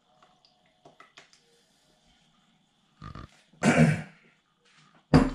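A few faint clicks of a wooden spoon in a steel mixing bowl. Then, about three and a half seconds in, a man's short grunting throat-clearing sound, followed near the end by another loud burst with a low thud.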